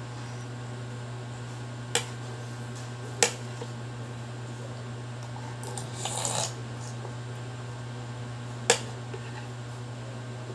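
Metal spoon clinking against a bowl of noodles three times, with a short slurp from the spoon about six seconds in, over a steady low hum.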